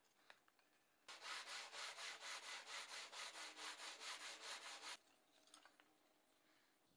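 The edge of a thin softwood mandolin plate being rubbed back and forth on sandpaper laid flat on the bench. It runs as quick, even rasping strokes, about five a second, starting about a second in and stopping after about four seconds.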